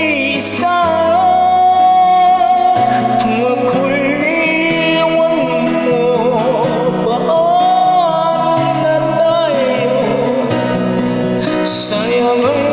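Ballad with a sung vocal over instrumental backing, the voice holding long notes.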